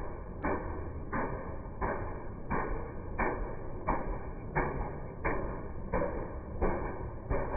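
Fairground Ferris wheel running: a regular knock about every two-thirds of a second from its turning mechanism, over a steady low rumble.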